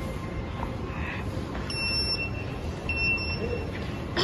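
Two short electronic beeps about a second apart, each one steady high tone lasting about half a second, over a steady background din.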